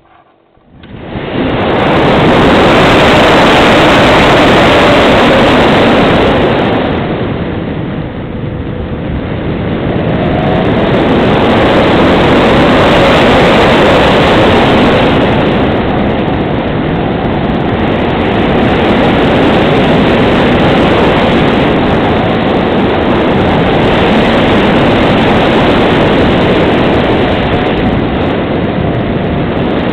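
Airflow rushing over the microphone of a camera mounted on an unpowered Grunau Baby glider in aerobatic flight. It starts almost silent, rises within about two seconds, and then swells and eases as the airspeed changes, with a dip about eight seconds in.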